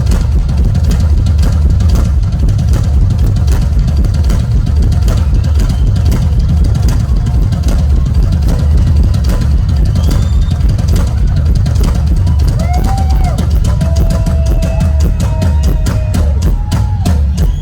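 Rock drum solo on a full drum kit: a heavy bass drum under rapid snare and tom strikes and rolls, the strokes growing denser near the end.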